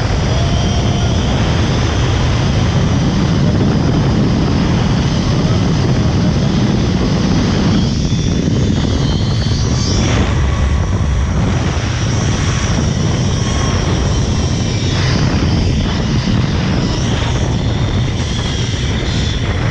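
Zip-line trolley pulleys running fast along the steel cable, a loud, steady whirring rush mixed with wind buffeting the microphone, with a few sharp ticks in the second half.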